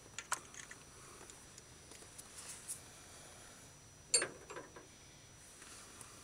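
A spark plug thread chaser being started by hand in a carbon-clogged plug hole in the cast-iron cylinder head of a Ford 300 inline-six: a few faint metal clicks, and one louder short scrape about four seconds in followed by two small ticks, with quiet between.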